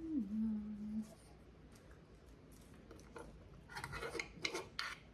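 A held sung or played note steps down in pitch and ends about a second in. Then it is quiet until a short run of rustling and clattering handling noises about four seconds in.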